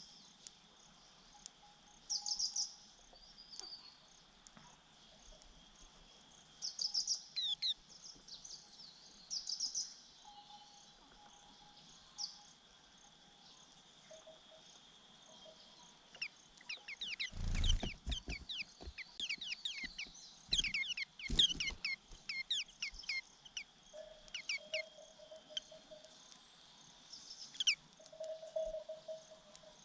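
White-eye chicks and parent chirping at the nest: short high bursts every few seconds, then a thump about halfway through followed by a dense run of quick, falling chirps, the chicks begging as they are fed. A steady high insect drone lies underneath.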